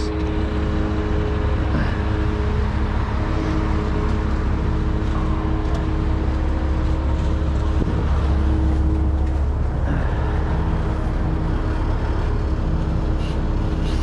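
Heavy diesel truck engine running steadily, a low rumble with a constant hum over it.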